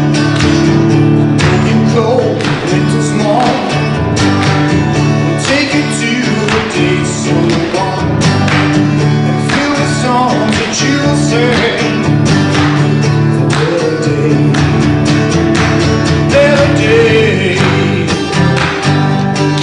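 Music: a sung song with guitar accompaniment, its chords held steady under a wavering vocal line.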